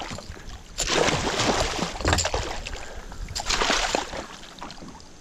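Hooked northern snakehead thrashing at the surface right beside a kayak, throwing up water in three bursts of splashing, the first the longest.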